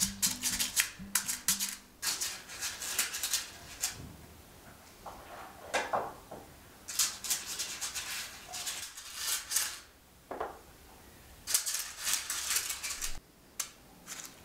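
Paper cupcake liners rustling and crinkling in short bursts as they are handled in a metal muffin tin and worked with a silicone pastry brush.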